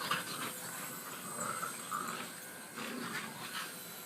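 A boxer dog making short, irregular breathy grunts and snorts as she chases and jumps at a toy helicopter.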